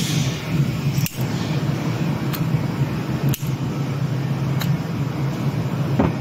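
Steady low mechanical hum, with about five light clicks spread through it as a stud welding gun is handled.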